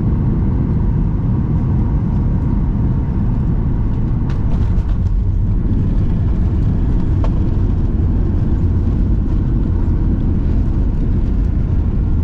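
Steady low rumble inside the cabin of a Boeing 737-800 on the ground after landing, from its engines and airframe, with a couple of faint clicks.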